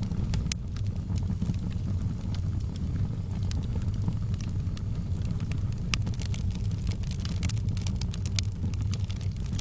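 Wood fire in a fireplace crackling: sharp pops and snaps come at random over a steady low rumble, thickening into a quick run of crackles near the end.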